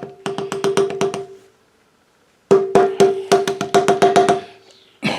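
Small cordless impact driver with an 8 mm socket hammering in short bursts of rapid knocks over its motor hum, spinning off the air cleaner base nuts of a Stihl BG85 two-stroke leaf blower. There is a burst of about a second, a brief pause, a longer burst of about two seconds, and another starting near the end.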